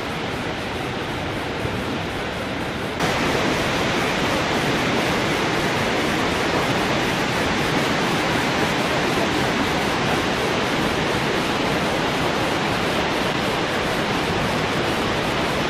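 Steady rushing noise of Victoria Falls, the Zambezi's water pouring into the gorge. About three seconds in it jumps louder and brighter, then holds steady.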